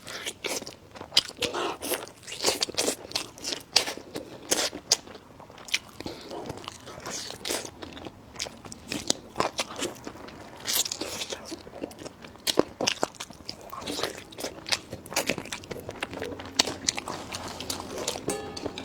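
Close-up chewing and biting of food, a dense irregular run of short crunching and clicking mouth sounds.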